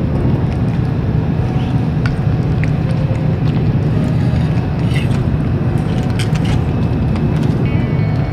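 Strong wind blowing across the microphone: a steady low rumble, with a few faint ticks.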